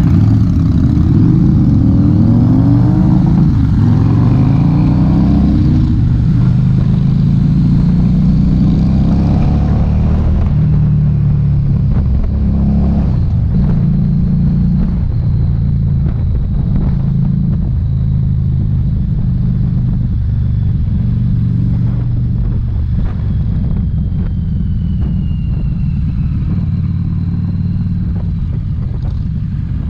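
Harley-Davidson Street 750's V-twin engine pulling away from a stop and accelerating up through the gears, its pitch rising in repeated sweeps over the first few seconds. It then runs steadily at cruising speed and eases off near the end as the bike slows.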